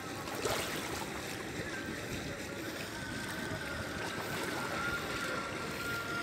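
Steady wash of harbour water against a concrete seawall. A faint, thin, steady whine joins about halfway through.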